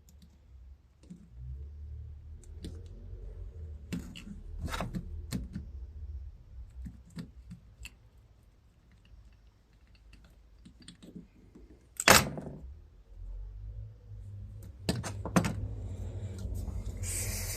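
Small metal carburetor parts being handled and fitted together: scattered light clicks and taps, with one sharper clack about 12 seconds in and a short rustling hiss near the end.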